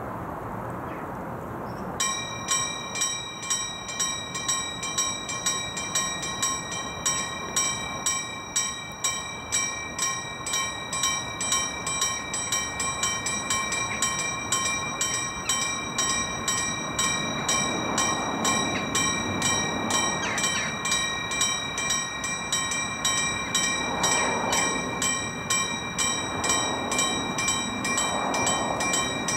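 Railway level-crossing warning bell starting up about two seconds in and ringing in even, quick strokes, about one and a half a second: the crossing has activated and its barriers are lowering for an approaching train.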